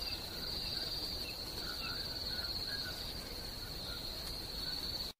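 Crickets trilling: a steady high trill over a faint hiss, with softer short chirps repeating irregularly beneath it. It cuts off abruptly at the very end.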